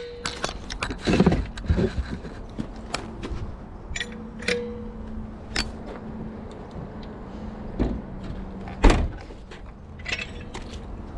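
Metal clanks, clicks and knocks from a hydraulic floor jack and tools being handled at a car's open trunk, with one louder sharp knock near the end.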